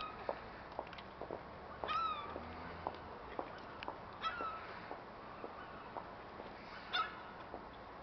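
Gulls calling: three short, down-bending mewing calls a couple of seconds apart, with scattered short clicks in the background.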